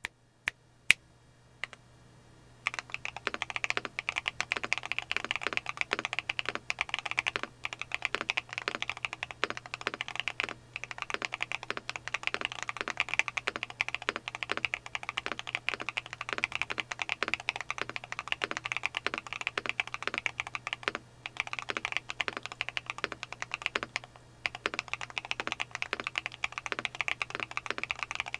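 Mechanical keyboard typing test on factory-lubed Akko Stellar Rose linear switches, in a Neo 70 board with Krytox KOL keycaps. A few single keystrokes come first, then fast continuous typing starts about three seconds in. A faint steady hum sits underneath.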